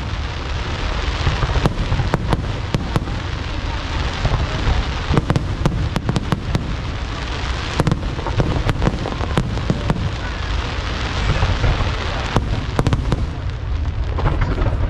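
Aerial fireworks bursting continuously: many sharp, irregular bangs over a steady rumble.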